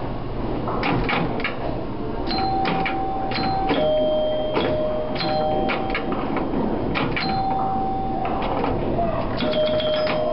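Old electromechanical pinball machine in play: quick clicks and clacks from its bumpers, flippers and relays, with bells ringing in held tones of about a second each at two alternating pitches, several times over.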